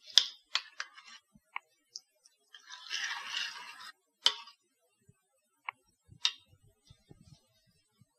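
A spoon clinking and scraping against a porcelain bowl while stirring shredded beetroot into buttermilk. There are scattered sharp clinks, some ringing briefly, and a denser scraping, sloshing stretch about three seconds in.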